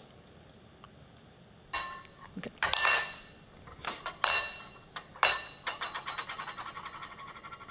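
A recording of cutlery clinking, played back over a hall's loudspeakers: sharp metallic clinks start about two seconds in, and near the end they turn into a quick run of light ticks.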